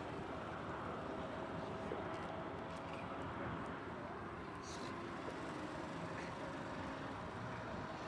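Steady outdoor background noise with a faint steady hum and faint distant voices.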